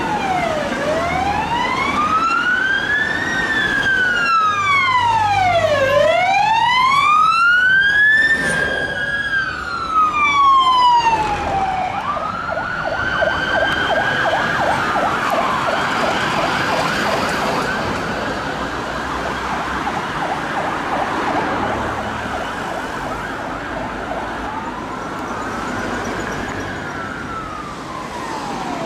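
Fire engine sirens in traffic, two of them overlapping at first, in a slow wail that rises and falls about every five seconds. About twelve seconds in, they switch to a fast yelp, and a slow wail returns near the end.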